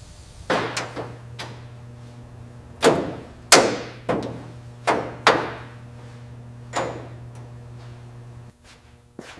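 A series of about eight heavy knocks at irregular intervals, each dying away quickly, the loudest two near the middle. Under them runs a steady low hum that stops shortly before the end.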